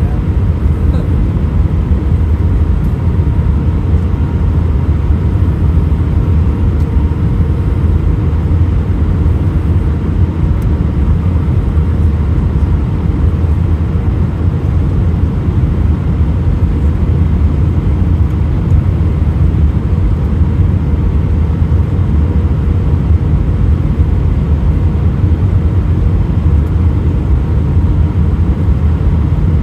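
Steady cabin noise inside an Airbus A319 in flight on approach: a low engine and airflow rumble with a faint steady hum above it.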